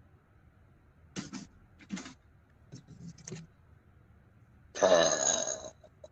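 A girl burps once, loud and pitched, lasting about a second, about five seconds in. It follows a few brief, quieter sounds.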